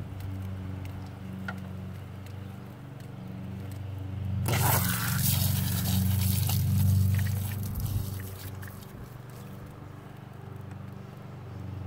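An expandable garden hose's plastic connector is worked off an outdoor spigot, with a loud scraping, hissing burst for about two to three seconds near the middle. A steady low hum runs underneath.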